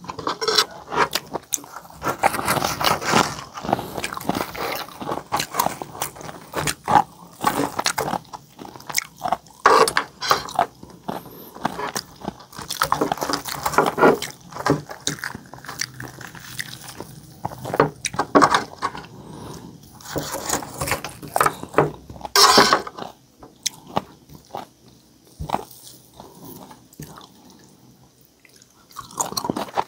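Close-miked chewing and crunching of crispy pata (deep-fried pork knuckle), with wet mouth sounds and crisp skin cracking, irregular throughout and sparser near the end.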